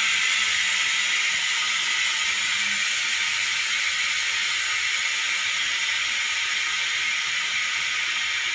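LCD-refurbishing autoclave (bubble-removing machine) automatically venting its pressurised chamber at the end of its timed cycle: a steady hiss of escaping compressed air, easing off slightly as the pressure drops.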